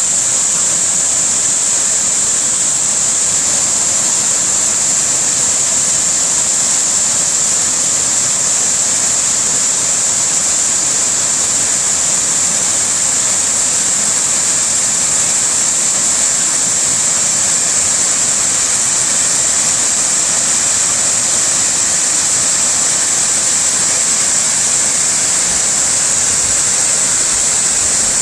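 Waterfall: water rushing and splashing in a steady, dense hiss that does not change.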